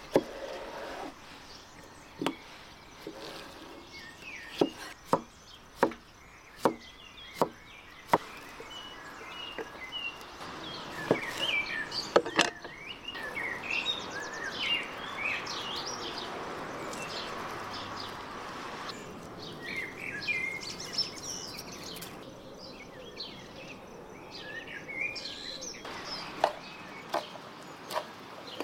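A cleaver chopping cucumber on a wooden cutting board: sharp knocks at an uneven pace through the first half, with a denser, louder run of knocks partway through. Birds chirp throughout, a soft steady hiss follows the chopping, and near the end wooden utensils knock a few times as a salad is tossed in a wooden bowl.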